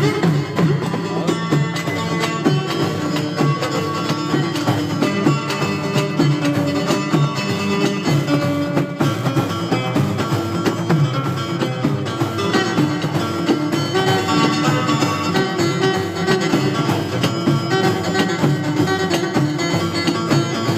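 Instrumental music led by plucked string instruments, played continuously without singing.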